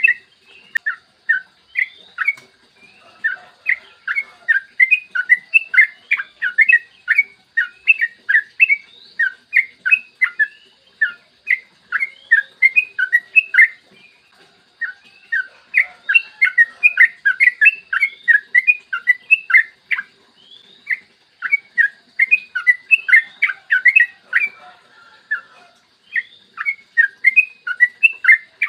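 Sooty-headed bulbul (trucukan) singing long, fast runs of short chirped whistles, several notes a second, broken by a few brief pauses.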